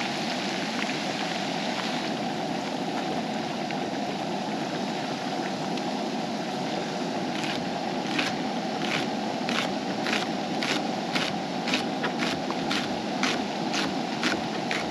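Potato fries frying in oil in a skillet, a steady sizzle. From about halfway through, a knife chops lettuce against a wooden cutting board in regular strokes, about two a second.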